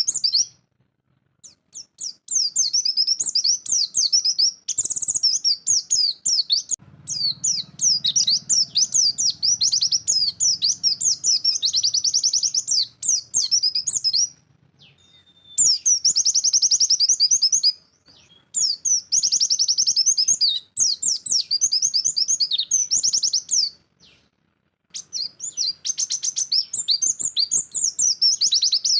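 White-eye (pleci) singing a fast, high, twittering song in long unbroken phrases, with a few brief pauses between them.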